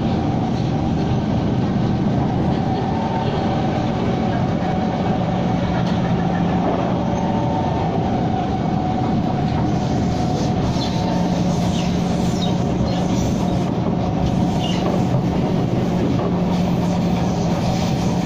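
SMRT C151 metro train running along the track: a steady rumble with humming motor tones. In the second half come short high-pitched squeals.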